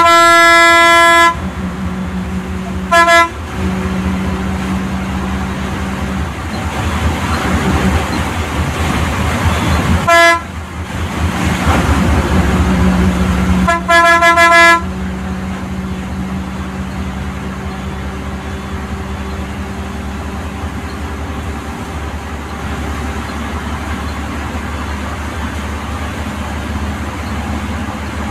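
Bus horn honking in loud blasts: a long one at the start, a short one about three seconds in, and another about a second long near the middle, over the steady engine and road noise heard inside the bus driver's cab.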